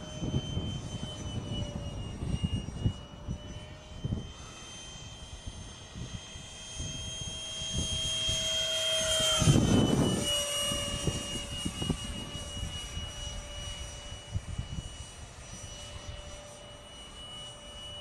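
Electric ducted fan of a foam RC F/A-18 jet whining steadily, growing louder as the jet passes low about halfway through, its pitch dropping slightly as it goes by. Gusts of strong wind buffet the microphone.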